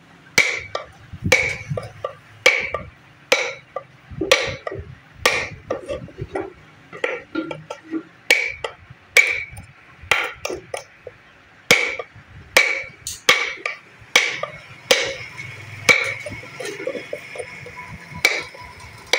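Hand chisel knocking into the wall of a wooden box as a design is carved, a sharp wooden knock about once a second, each with a short ring.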